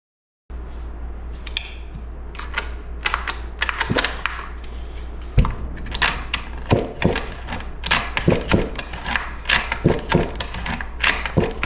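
Metal chainsaw parts clicking and clinking as they are handled and fitted together by hand: a run of irregular sharp clicks and clanks that come thicker in the second half, over a steady low hum.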